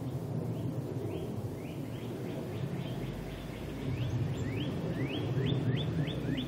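Small birds chirping: a fast series of short rising chirps, about four a second and some overlapping, over a steady low rumble.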